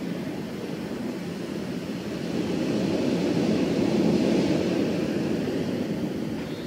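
Wind blowing in a gust: a rushing noise that swells about halfway through and then eases off.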